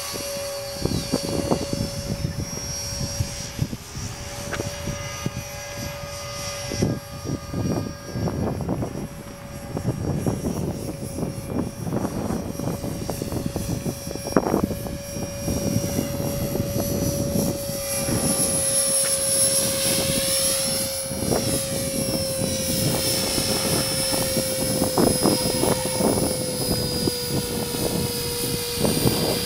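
Esky Belt CPX electric RC helicopter hovering and flying, its motor and rotors giving a steady whine that sags slightly in pitch near the end. Gusty wind buffets the microphone throughout.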